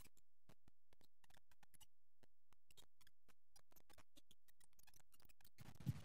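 Near silence: faint room tone with scattered small clicks, and a brief louder sound just before the end.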